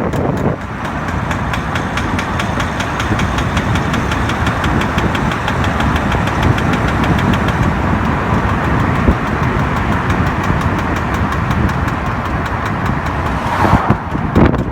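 BMW E60 rear driveline knocking rapidly and evenly over road and engine noise while driving in Drive. The cause proved to be a worn rear output shaft (half-shaft) on the driver's side, with its CV joint at the wheel.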